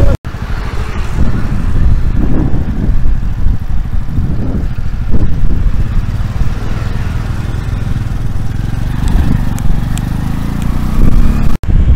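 Loud, steady low rumble of road traffic, with motorcycles passing.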